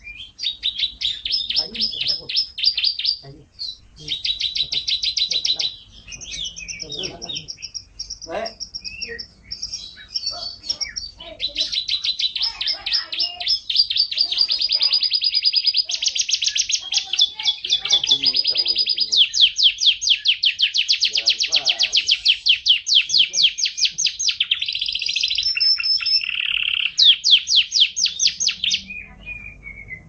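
Domestic canary singing a long song of fast trills. Each phrase is a quick run of repeated notes, and a new phrase starts every second or two, with short pauses in the first few seconds before it sings almost without a break.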